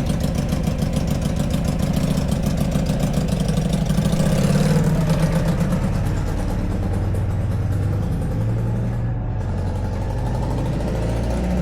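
Benda (Keeway) V-Cruise 125 motorcycle's 125 cc V-twin engine idling, with a brief rise in revs about four seconds in before settling back to a steady idle.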